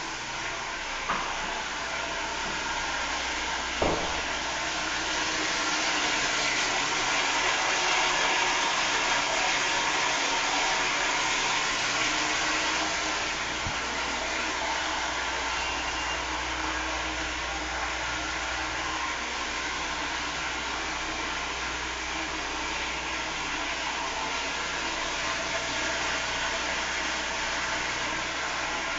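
Toilet flushing: a steady rush of water that swells a little about six seconds in and settles again after about thirteen seconds, with two short clicks in the first four seconds.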